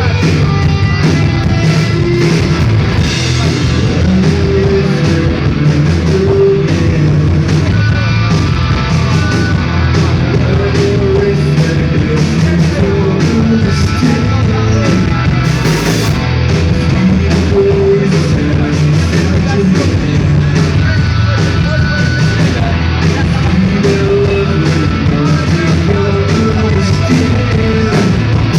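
Live rock band playing loud: electric guitar, bass and drum kit, with steady, frequent drum hits and no break.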